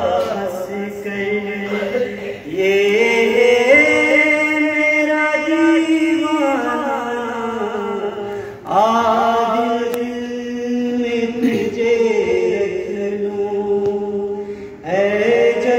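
Naat, an Urdu devotional poem, sung unaccompanied in long, held melodic phrases with short breath pauses between them, about every six seconds.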